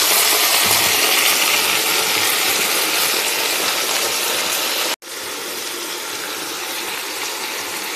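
Sliced tomatoes sizzling in hot oil with fried onion and garlic in a kadhai. The sizzle cuts off sharply about five seconds in, then carries on a little quieter.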